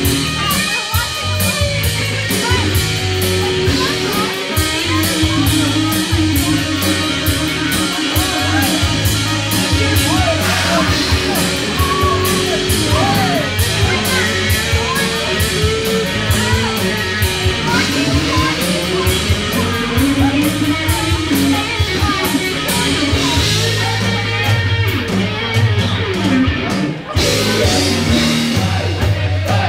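Live rock band playing: electric guitar, bass guitar and a drum kit keeping a steady beat on the cymbals, loud and continuous.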